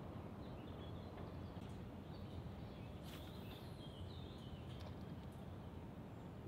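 Quiet lakeside ambience: a steady low rumble with a few faint bird chirps, and a brief high sweep about three seconds in.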